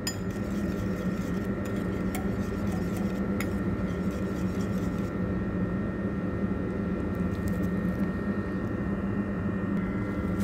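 A steady low hum, with a few faint clicks of a wire whisk against the bowl as it stirs a thin mustard-and-oil dressing.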